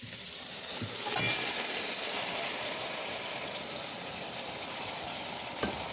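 Oil sizzling in a pot of frying onions, swelling about a second in as marinated beef chunks are tipped in from a metal bowl, with a few knocks of the bowl against the pot.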